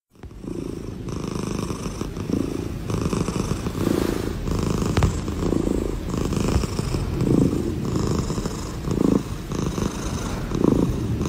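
Tabby cat purring steadily while being stroked, the purr swelling and easing with each breath about once a second.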